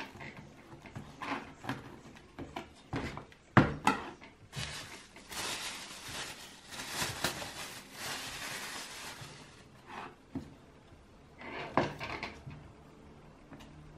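Table knife scraping butter across a slice of rye bread and knocking on a wooden cutting board as butter is spread and cheese is cut. One sharp knock a few seconds in, and a longer stretch of scraping noise in the middle.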